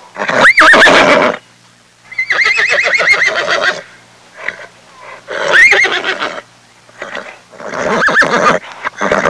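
A horse neighing: four separate whinnies, the second the longest, with a rapid quavering warble.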